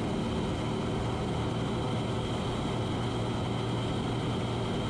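Steady in-cabin drone of a Cessna 182's piston engine and propeller in cruise, unchanging in pitch and level.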